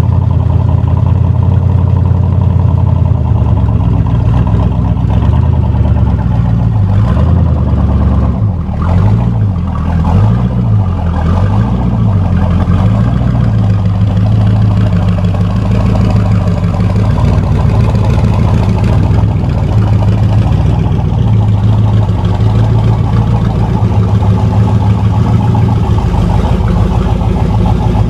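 C2 Corvette Sting Ray's V8 idling loudly through its side-pipe exhausts just after a cold start. About eight seconds in, the idle speed rises and falls several times, then settles back to a steady idle.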